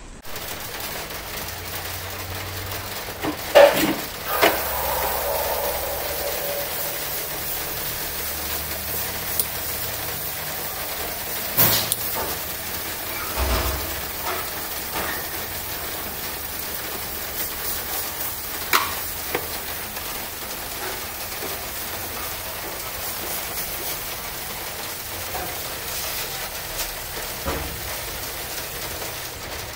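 Steady hiss with scattered sharp clicks and knocks from hand work on an electrical meter and breaker board. The loudest knocks come about four and twelve seconds in.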